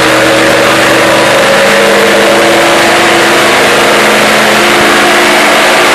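Chevrolet Z71 pickup's engine running on a chassis dyno, loud and steady, its pitch climbing slowly, over a constant rush of noise.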